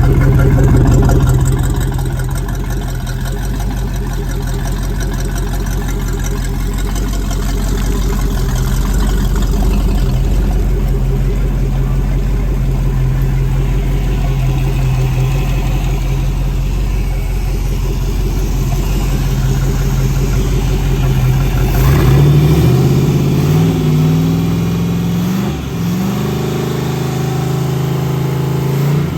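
Freshly overhauled Crusader 454 big-block V8 marine engine running steadily on its test run, sounding sound and healthy. About three quarters of the way through it is revved up to a higher, faster-pitched speed, dips briefly, then holds the higher speed.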